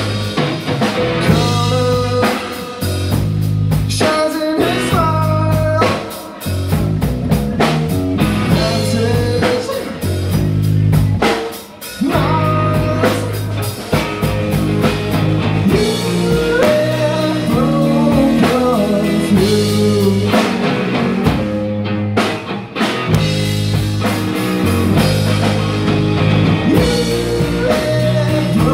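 Live rock trio playing: Fender electric guitar, bass guitar and Gretsch drum kit, with a male lead vocal sung over them. The loudness dips briefly twice, around a quarter and just under halfway through.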